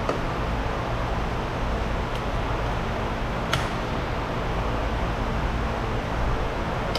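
Steady background noise with two small clicks, a faint one about two seconds in and a sharper one about three and a half seconds in: a flathead screwdriver prying at a small plastic trim piece on a car door handle.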